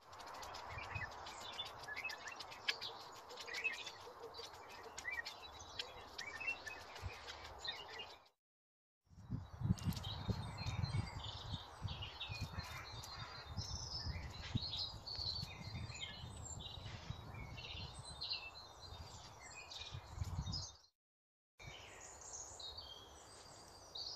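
Small songbirds chirping and singing over a steady outdoor hiss, with low rustles and knocks in the middle stretch. The sound drops out to silence twice, briefly.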